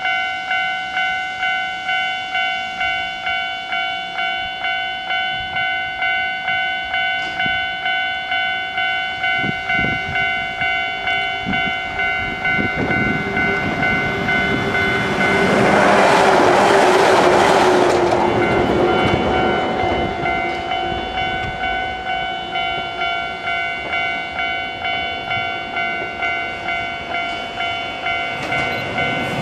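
Japanese level-crossing warning bell clanging steadily about twice a second. Partway through, a JR 115-series electric train runs past, its wheels and running gear loudest about 16 to 18 seconds in, then fading while the bell keeps ringing.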